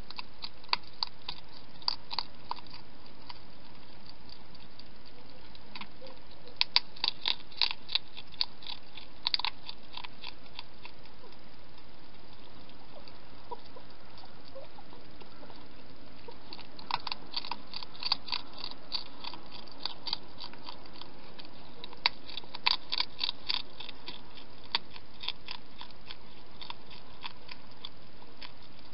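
Wild hedgehog eating from a bowl: loud, sharp crunching clicks in spells of a few seconds, with pauses between them.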